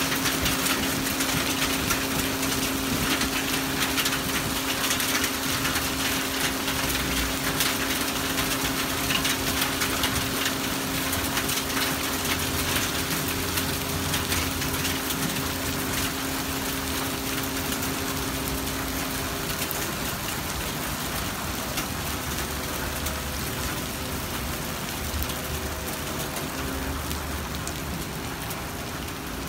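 Hail and rain falling on pavement, grass and puddles: a dense hiss of drops sprinkled with many small sharp ticks. A steady low hum runs underneath and stops about two-thirds of the way through.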